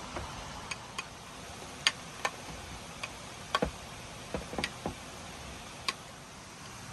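Scattered sharp clicks and taps at an irregular pace, about a dozen in all, over a steady hiss.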